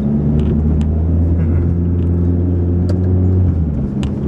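Car engine and road noise heard from inside the moving car's cabin: a steady low drone with a few small clicks and rattles. The low engine note shifts about three and a half seconds in.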